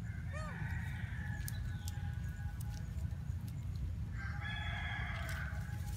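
A rooster crowing twice, about four seconds apart, each crow rising and falling quickly and then held on one note, over a steady low rumble.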